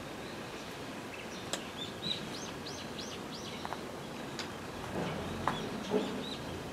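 Small bird calling: a quick run of about five short, arched chirps about two seconds in, then a few more chirps near the end, over a steady background hiss of ambient noise. A couple of short knocks just past the middle are the loudest moments.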